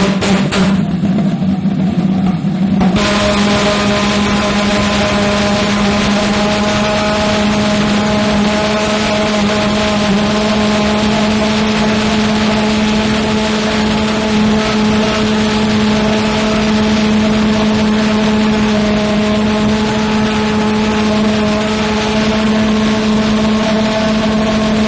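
Mini gasoline pulsejet engine running steadily, a loud buzzing drone with a strong low tone over a hiss of combustion noise. About three seconds in it turns fuller and harsher, with more hiss, and then holds steady.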